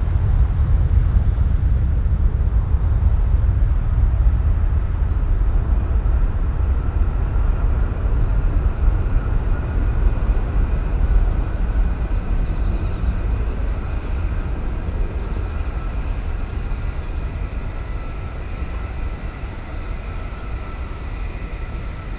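Four-engine Boeing 747 jet departing, a deep steady engine rumble that slowly fades as it moves away, with faint whining engine tones above it.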